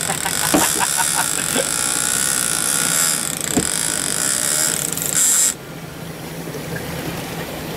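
Boat engine running with a steady hum under a loud hiss, which cuts off suddenly about five and a half seconds in; a few short knocks in the first couple of seconds and one more midway.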